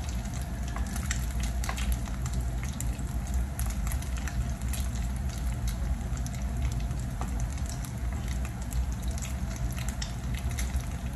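Ground-beef omelette patties frying in hot oil in a pan: a steady sizzle with many small crackles and pops throughout.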